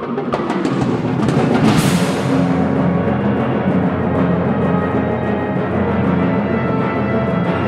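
Symphonic wind band and drum kit playing: a few sharp drum hits at the start, a cymbal crash swelling about a second and a half in, then the band holding sustained chords over a steady low drum roll.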